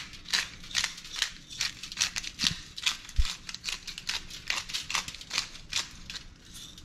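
Pepper grinder being twisted over fish, a steady run of short crunching strokes about two and a half a second, with a single low thump about three seconds in.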